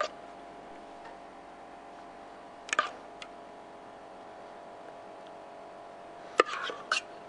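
Metal ladle clinking against a steel saucepan and baking tray as béchamel sauce is spooned out: one clink at the start, a couple about three seconds in, and a quick run of clinks near the end, over a steady faint hum.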